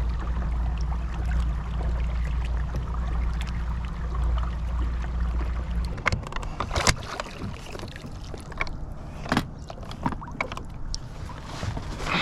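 Minn Kota Endura electric trolling motor running with a steady low hum, cutting off abruptly about six seconds in. After that come scattered sharp knocks and clicks.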